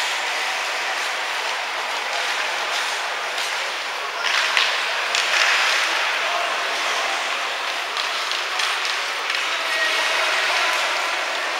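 Ice hockey rink sound during play: skates scraping and carving on the ice, with louder scrapes about four seconds in and again a second later, and faint distant shouts.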